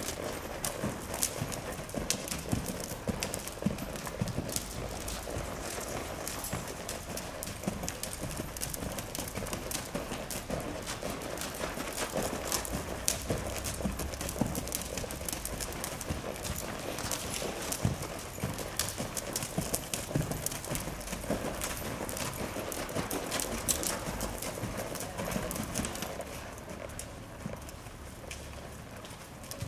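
American Quarter Horse gelding's hoofbeats on arena sand under a rider, a steady run of thuds and clicks that eases and gets quieter near the end as the horse slows to a walk.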